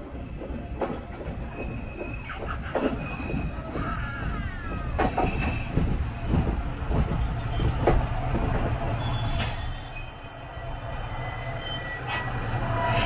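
Wakasa Railway diesel railcar pulling into the station and braking: its engine rumble grows louder as it draws near, with a high, steady squeal from the wheels and brakes as it slows.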